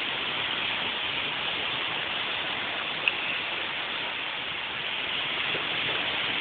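Steady rushing noise of a storm front coming in over the lake, even throughout with no distinct events, and one faint click about three seconds in.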